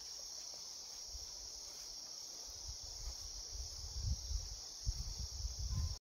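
Forest insects giving a steady, unbroken high-pitched buzz. Low rumbling bumps on the microphone come in during the second half and grow louder toward the end.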